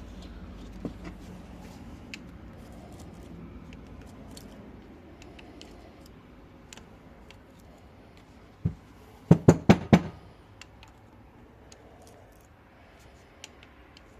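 Workshop handling of a metal brake caliper and small parts: light clicks, a single knock, then a quick run of about five loud knocks a few seconds before the end.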